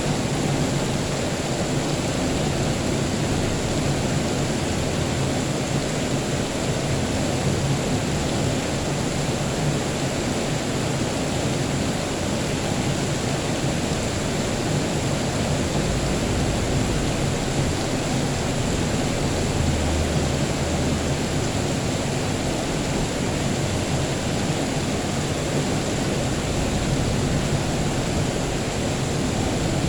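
Steady rain, an even unbroken hiss. A low rumble of distant thunder swells in the bass from about halfway through for several seconds.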